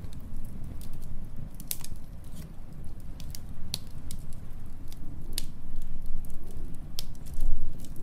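Wood fire crackling, with scattered sharp pops, over a steady low rumble of storm wind.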